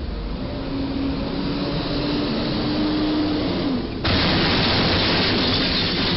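Traffic noise and a vehicle engine hum that rises slightly, then about four seconds in a sudden loud crash followed by sustained grinding and scraping as a box truck's cargo body hits the steel crash beam in front of a low railway trestle and its roof is torn open.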